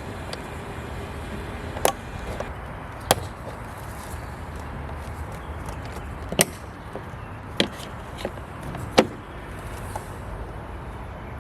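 Sharp, irregular knocks and clicks of a Torx screwdriver and hands working on a car's interior door panel, five standing out over a steady low rumble.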